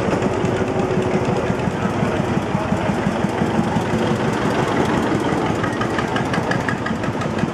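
Svoboda DK15 vintage tractor's engine running with a steady, rapid chugging as the tractor drives past.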